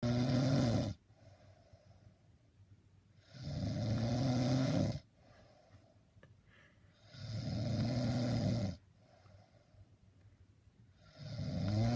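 A man snoring in his sleep: four long snores, each about one and a half seconds, coming roughly every four seconds with quiet gaps between them.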